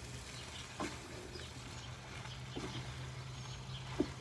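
Wooden spatula and spoon tossing fried noodles in a large metal pot, with three scattered knocks of wood on the pan, the last the loudest, over a steady low hum.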